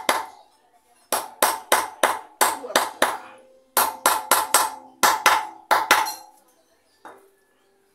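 Hammer blows on metal driving a new wheel bearing into a motorcycle's rear hub, each strike ringing. The strikes come about four a second in two runs of eight to ten, with a short pause between them and a single lighter tap near the end.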